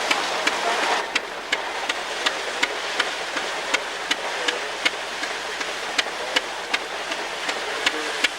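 A running machine clicking at an even rate of about three clicks a second over a steady hiss; the hiss drops about a second in.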